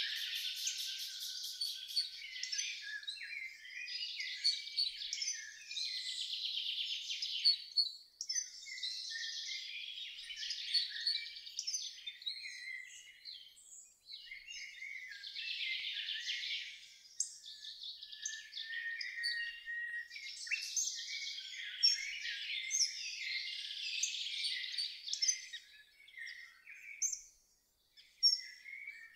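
Several songbirds singing over one another in a dense chorus of chirps and rapid trills, with a short lull near the end.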